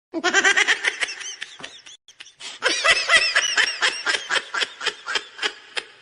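A giggling laugh: quick, rapid rhythmic bursts of high-pitched laughter in two runs, the second fading away near the end.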